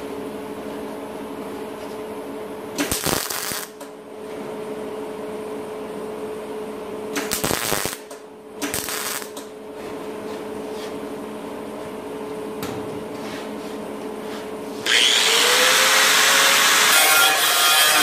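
A steady hum broken by three short bursts of crackle from tack welds on sheet metal, about three seconds in and again twice between seven and nine seconds. Loud guitar music comes in near the end.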